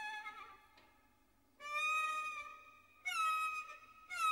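Background score of a solo violin playing slow, long held notes with a slight waver. The note dies away about a second in, and new sustained notes enter about a second and a half in and again around three seconds.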